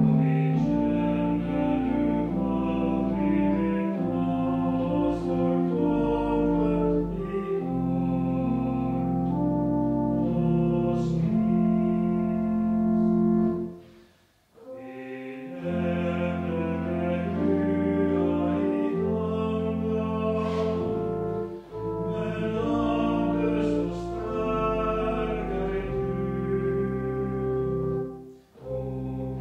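Church pipe organ playing a slow hymn, sustained chords over a deep held bass. The music breaks off briefly about halfway through and again near the end.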